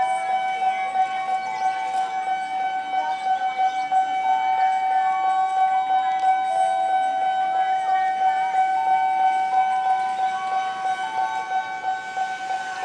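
Electronic railroad-crossing siren (Nippon Signal) sounding continuously at a fast pulsing tempo, a steady high tone repeating rapidly.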